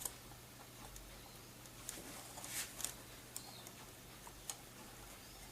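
Faint, scattered clicks of plastic parts on a Sony Blu-ray player being pushed and worked loose by hand, with a brief scrape about two and a half seconds in.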